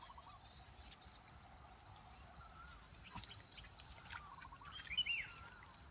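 Insects chirring steadily at a high pitch, with a few faint bird calls, one near the end.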